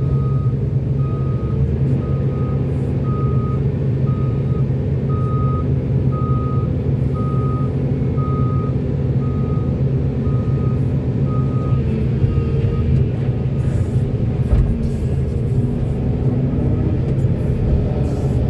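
Heavy diesel machinery running steadily, with a reversing alarm beeping about once a second; the beeping stops about two-thirds of the way through while the engine keeps running.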